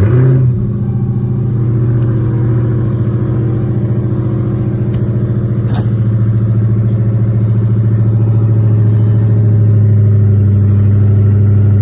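Dodge Charger SRT Hellcat's supercharged 6.2-litre Hemi V8 starting up with a brief flare, then settling into a loud, steady idle with an even pulse.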